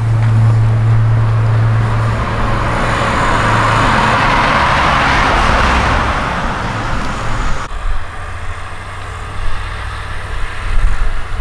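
A car passes on the road, its engine and tyre noise swelling to a peak about five seconds in and then fading. The sound cuts off suddenly a little before eight seconds, leaving a quieter outdoor background.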